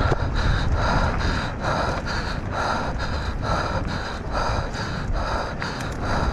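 Mountain-bike racer panting hard in a steady rhythm, about two breaths a second, the breathing of a rider deep into a long downhill enduro race, over a steady low rumble.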